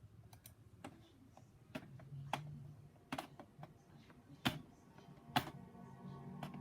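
About a dozen sharp clicks at irregular intervals over a faint low hum. A steady drone of several held tones begins near the end.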